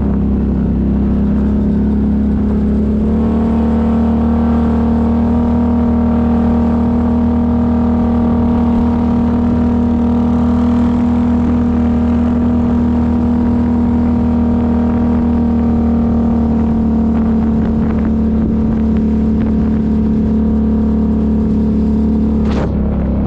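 ATV engine running steadily at a constant engine speed, with a brief break near the end.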